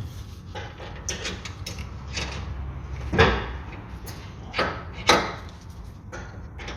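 Sharp knocks and clunks of car suspension parts being handled and fitted, a control arm and its bolts being worked into place: several separate knocks, the loudest about three seconds in and two more near the end.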